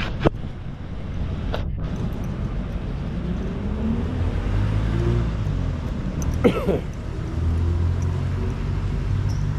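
Street traffic: vehicle engines running steadily past, with their pitch slowly shifting. About six and a half seconds in comes a short, loud call of bending pitch, the loudest sound here.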